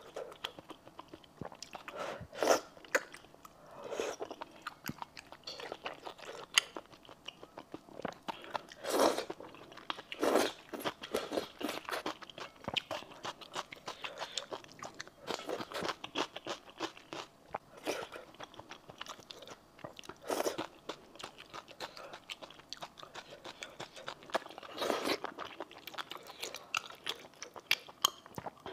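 Close-miked eating sounds: a person biting and chewing wide noodles and other pieces from a spicy red stew, in irregular bursts of wet, crunchy mouth noise.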